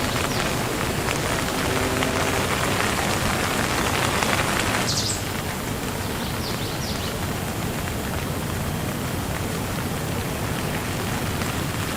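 Steady heavy rain falling, with an abrupt drop in loudness about five seconds in.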